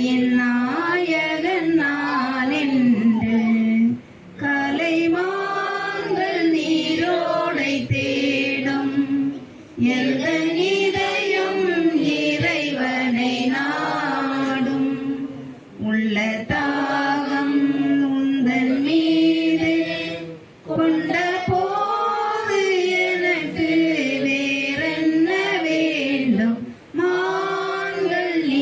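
Voices singing a verse of the Tamil responsorial psalm in long phrases, with short breaks between them about every four to six seconds.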